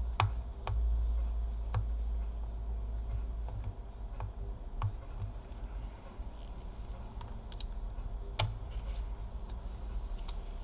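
Scattered light clicks and taps of hands working inside an opened laptop, fitting its cables and connectors back into place, over low handling bumps; the sharpest clicks come just after the start and about eight seconds in.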